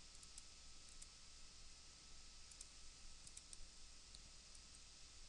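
Near silence with about ten faint, scattered clicks from a computer mouse and keyboard over a low steady hiss.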